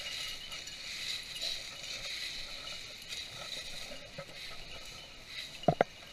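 Steady rustling of dry brush and fallen leaves as a hunter walks through the cover. Near the end come two sharp clicks in quick succession, the loudest sounds.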